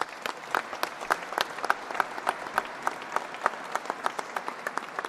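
A group applauding, many hands clapping steadily, with a run of louder, sharp claps from someone close by standing out.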